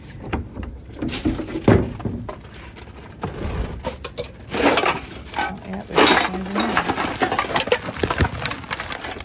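Plastic garbage bag being dragged and shifted in a dumpster: crinkly rustling with many sharp clinks and knocks of the things inside it.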